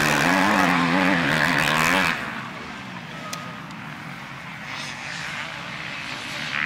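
Motocross bike engines revving hard, the pitch rising and falling with the throttle. About two seconds in the sound drops off sharply to a quieter, more distant engine drone, which builds again near the end as another bike comes closer.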